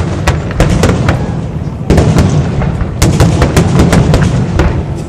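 Fireworks display: many bangs and crackling bursts in quick, irregular succession over a constant low rumble, getting denser and louder about two seconds in.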